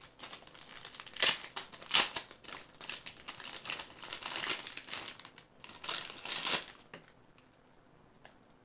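Small plastic packaging of a rubber keychain crinkling and crackling as it is handled and opened by hand, with two sharp louder crackles about a second and two seconds in; the crinkling stops about seven seconds in.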